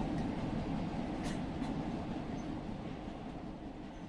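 Metro train running: a steady rumble with a few faint clicks, gradually fading out.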